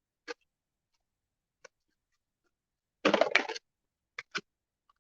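Deck of oracle cards being shuffled by hand: a few single card clicks, a louder half-second flurry of shuffling about three seconds in, then two quick clicks near the end.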